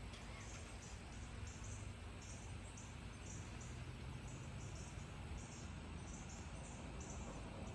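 Insects calling in short, high-pitched pulses repeated about twice a second, over a faint, steady low rumble.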